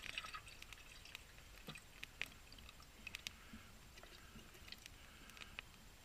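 Faint pouring and soft plopping as thick sauce and meat chunks slide from a glass jar into a stainless steel pot, with a few small clicks as the jar is shaken out.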